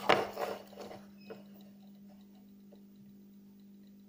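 Close handling noise from fingers working a fine syringe needle and fishing line: a brief rustle with small clicks in the first second, then faint scattered ticks. A steady low hum runs underneath.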